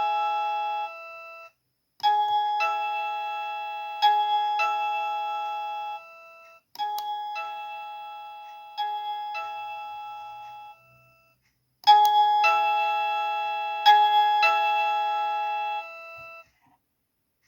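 TDM wireless plug-in doorbell chime playing its electronic bell-tone melodies: three short tunes of struck chime notes, each ringing and fading over about four seconds, with brief silences between them.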